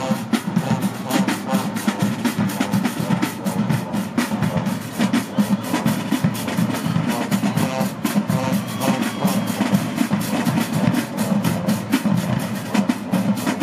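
High school marching band playing on the field: sousaphones and brass over a drumline's steady beat.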